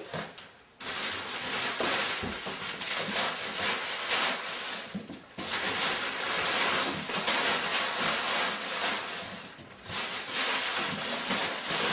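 Crumpled packing paper rustling and crackling as it is pushed in as a top layer of padding in a large cardboard picture carton. It starts about a second in and goes on with two brief lulls.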